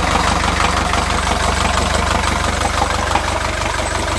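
Volvo 55 hp inboard marine diesel engine idling steadily and evenly just after a cold start, with no throttle and no hesitation, heard up close in its open engine compartment.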